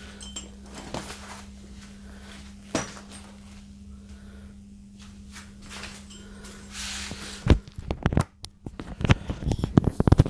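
Handling noise from a backpack being worn and adjusted: scattered knocks and clicks that come thick and loud in the last few seconds, over a steady low hum.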